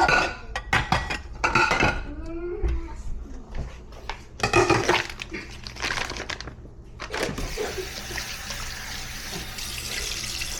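Dishes and utensils clattering in a kitchen, then a kitchen tap running steadily into the sink from about seven seconds in.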